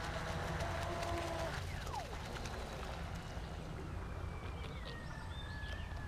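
Brushless electric motor of a Proboat Miss Geico RC boat whining as it runs across the water, its pitch easing slowly downward and then dropping sharply at the very end. A steady low rumble lies underneath.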